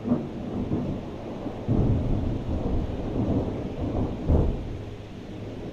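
Thunder rumbling: a low roll that sets in suddenly, with loud peaks about two seconds in and again near four and a half seconds, then slowly dying away.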